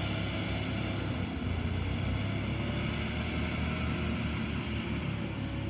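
Cat 304 mini excavator's diesel engine running steadily.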